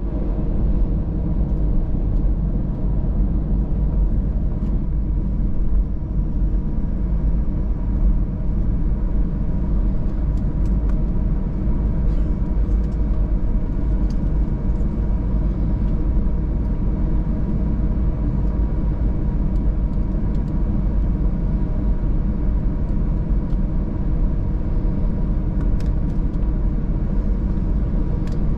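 Airbus A320 cabin noise from inside, with the engines running at idle before takeoff: a steady low rumble with a faint steady whine above it.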